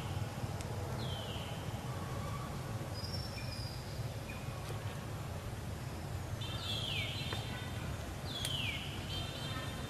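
Short, high-pitched animal calls, each one falling in pitch, heard four times over a steady low outdoor rumble.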